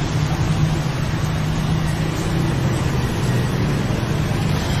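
A steady low motor drone under an even rushing noise.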